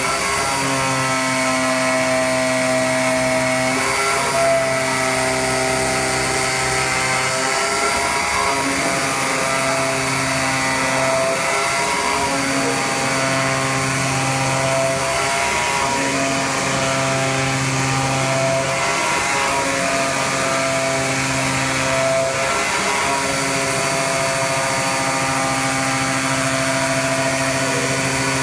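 CNC flatbed cutter running as its knife head cuts a cork gasket sheet: a steady machine hum and hiss, with motor tones that step up and down in pitch every few seconds as the head changes course.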